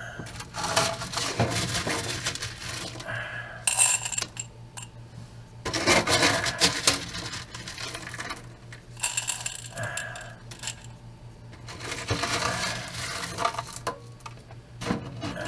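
Handfuls of small gravel pebbles dropping from the fingers into a glass jar, clinking and rattling against the glass in several separate spells.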